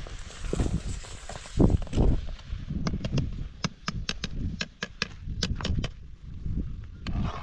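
A long-handled ladle stirring a large metal cooking pot over an open wood fire, with a low rumble throughout and a run of sharp clicks from about three seconds in.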